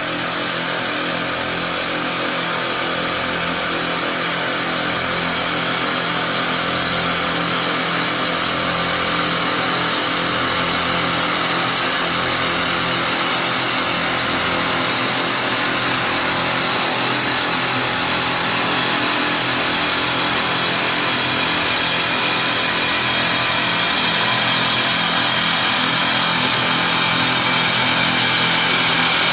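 Double-head CNC wood lathe turning two wooden spindles at once: steady machine hum under the continuous hiss of the cutting tools shaving the spinning wood, slowly getting louder.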